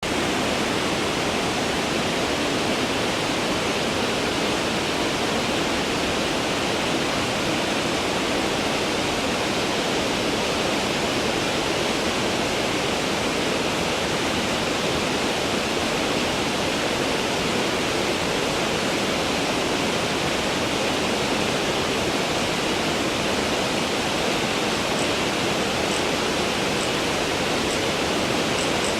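Steady, unbroken rushing of flowing water, with a few faint high-pitched ticks near the end.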